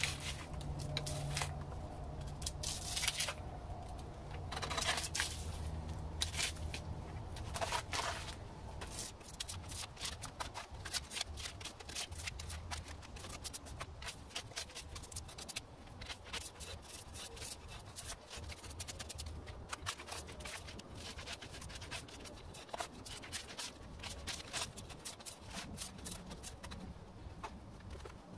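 Drawknife blade scraping and peeling bark and soft rotten wood off a log in repeated strokes, a few heavier strokes in the first several seconds, then quicker, lighter ones.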